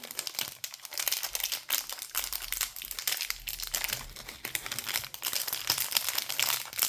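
Plastic packaging crinkling and rustling as it is handled and rummaged through, a continuous run of irregular crackles.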